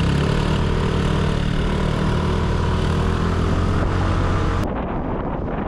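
Motor vehicle engine running at a steady speed, a constant low hum. The sound changes abruptly to a rougher rumble near the end.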